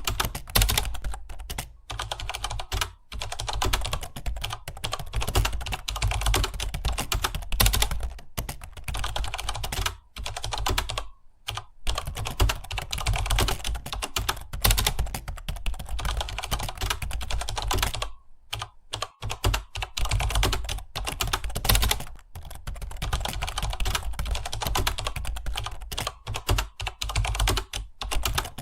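Fast typing on a computer keyboard: a dense, continuous patter of key clicks that stops briefly a few times, typing-test style.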